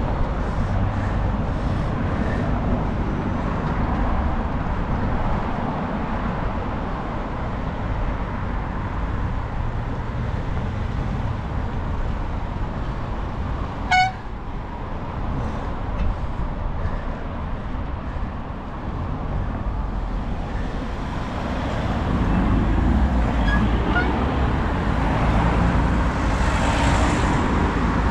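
Road traffic: cars and vans running close by, growing louder in the last few seconds. About halfway through there is one very short horn toot.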